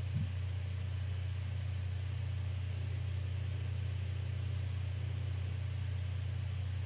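A steady low hum with nothing else going on, and a single soft bump just after the start.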